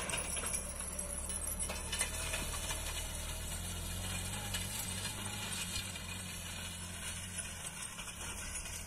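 John Deere 5093E tractor's diesel engine running steadily under load as it pulls a seed drill, with some rattling; it grows a little fainter as the tractor moves away.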